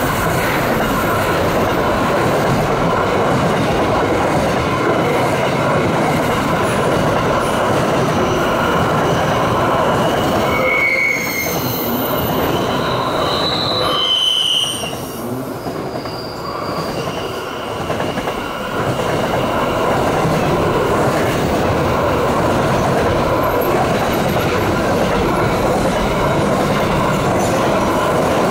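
Freight train of container wagons rolling past close by, a continuous rumble of steel wheels on rail with steady squealing from the wheels. A few short, higher squeals come about ten to fifteen seconds in, and the sound is briefly quieter just after.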